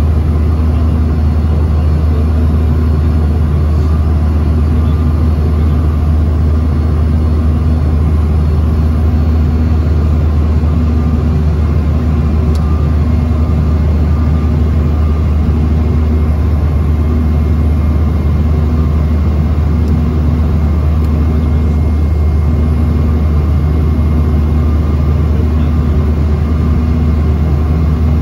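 Steady in-flight cabin drone of a Bombardier CRJ-900 airliner: its rear-mounted turbofan engines and the airflow over the fuselage, a loud deep hum with a few faint steady tones above it.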